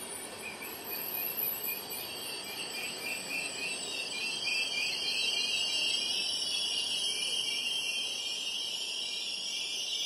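Brakes of PKP Intercity passenger coaches squealing as the train slows to a stop, a cluster of high-pitched wavering tones that grows louder over the seconds.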